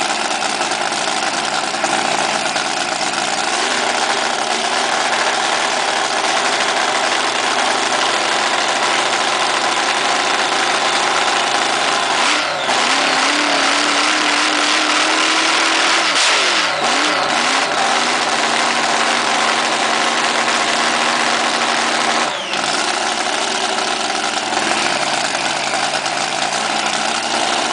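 Drag boat engine running loudly and steadily, its pitch rising and falling as it is revved a few times, with brief sudden breaks about twelve and twenty-two seconds in.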